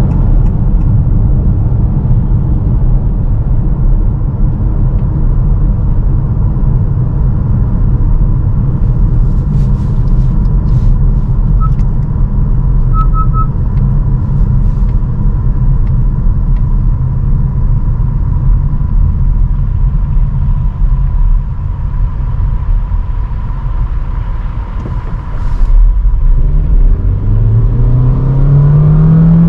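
2022 Honda HR-V e:HEV hybrid driving, with a steady rumble of road and wind noise, a thin constant whine and a few brief rattles from a GoPro mount. About 26 seconds in, a pitched drone comes in and rises, and the sound gets louder as the car accelerates.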